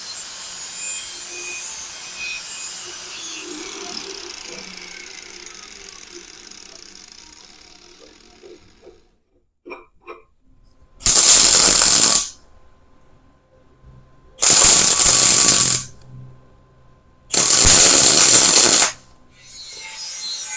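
Angle grinder cutting through 1-inch threaded rod held in a vise: three loud cuts of about a second each, a few seconds apart, with the grinder's motor running faintly between them. Before them, a hiss fades away over the first several seconds.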